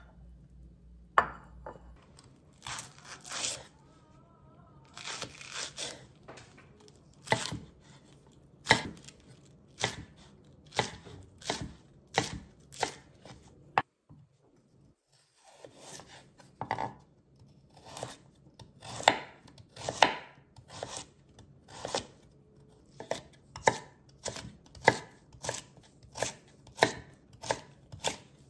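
Kitchen knife chopping vegetables on a cutting board: single, separate cuts about one a second, a little quicker later on, with a short pause midway.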